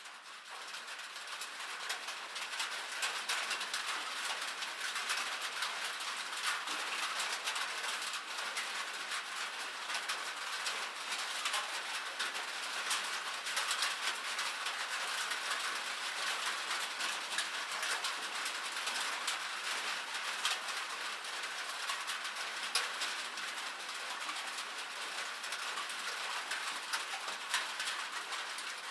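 Light rain falling steadily, a dense patter of many small drops. It fades in over the first second or two.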